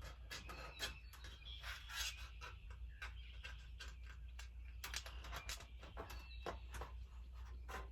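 Scattered small clicks and taps of nuts and bolts being handled and fitted into the raised-bed panels, with faint bird calls in the background.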